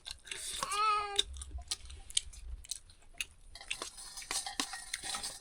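A cat meows once, about a second in, over scattered small clicks and taps of eating.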